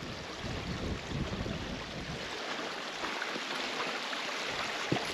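Steady rush of a moorland stream's running water, with a low wind rumble on the microphone that drops away after about two seconds. A single short knock near the end.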